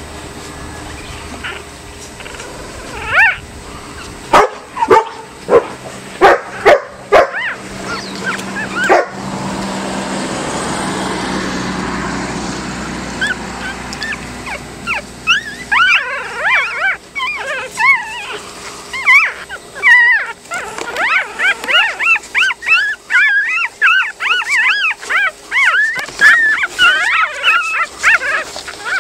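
Newborn dachshund puppies, three days old, squeaking and whimpering. A few short sharp sounds and a stretch of rushing noise come first; from about halfway, a rapid run of short, high cries rising and falling in pitch.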